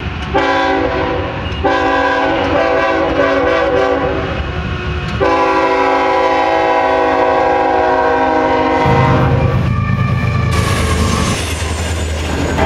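A diesel freight locomotive sounds its multi-tone air horn in three blasts, the first short and the next two long, for about nine seconds in all. The horn then gives way to the locomotive's low engine rumble and the hiss and clatter of cars rolling past on the rails.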